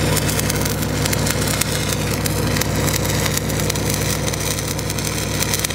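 Stick-welding arc from a cellulosic rod run downhill on steel pipe, crackling steadily over the even hum of an engine-driven welding machine; the crackle cuts off suddenly at the end.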